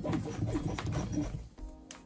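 Background music, louder and busier for about the first second and a half, then quieter steady tones.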